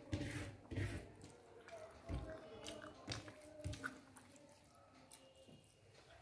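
A person eating rice and fish curry by hand: soft chewing and smacking, with fingers working the rice on the plate. There are a few short clicks in the first four seconds, then it goes quieter.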